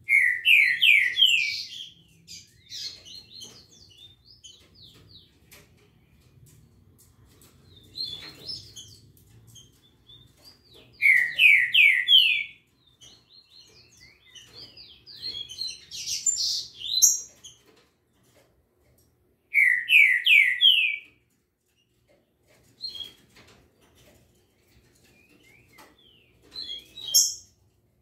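Caged songbirds singing. There are three loud phrases of quick repeated notes: one at the start, one about 11 seconds in and one about 20 seconds in. Softer chirps and calls come in between.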